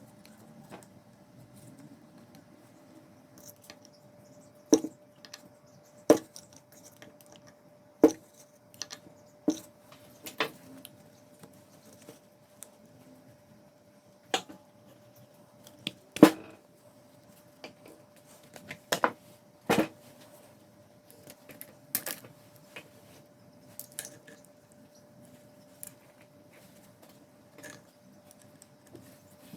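Irregular clinks and knocks of hand tools and small metal parts being handled while a portable pressure washer is taken apart, a dozen or so sharp strikes spread apart, over a faint steady hum.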